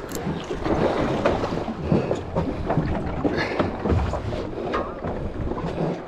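Wind buffeting the microphone and water rushing and splashing around a small open fishing boat at sea, an uneven noise without a steady rhythm.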